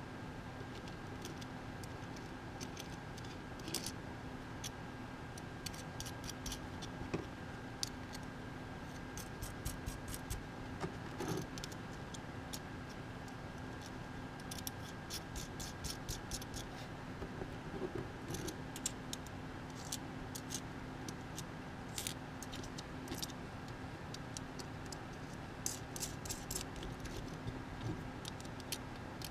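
Small steel hex nuts and a nut driver clicking and clinking against Thonkiconn jack threads and the metal front panel as the nuts are fitted and turned down by hand. The clicks come irregularly, over a steady faint hum.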